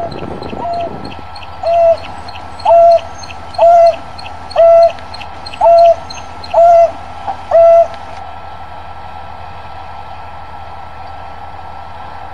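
African wild dog giving its hollow 'hoo' contact call, about seven times at roughly one-second intervals, each note flicking up and then holding steady. This is the long-distance call of a dog separated from its pack and calling to find it. The calls stop about eight seconds in, leaving a steady low hum.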